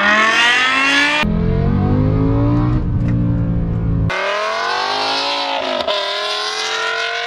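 BMW S85 5.0-litre V10 engine revving hard under acceleration, its pitch climbing, in three short clips edited together with abrupt cuts about a second in and again about four seconds in.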